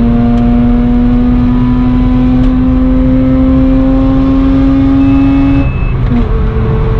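Mazda RX-8's two-rotor 13B rotary engine heard from inside the cabin, pulling under acceleration with its pitch climbing slowly and steadily. About five and a half seconds in the revs drop suddenly, then the engine settles at a lower pitch, with steady road noise underneath.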